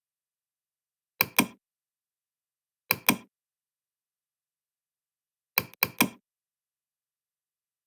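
Three short groups of sharp knocks, two or three in quick succession in each group, about a second and a half to two and a half seconds apart, with dead silence between them.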